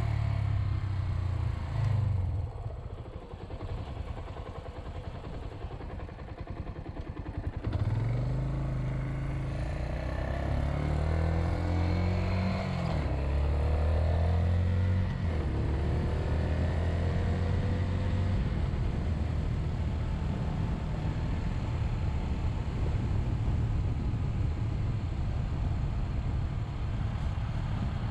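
Suzuki Grasstracker Big Boy's single-cylinder 250 cc engine running low for several seconds, then pulling away. Its revs rise and drop back as it shifts up a few gears, and it then runs steadily at cruising speed.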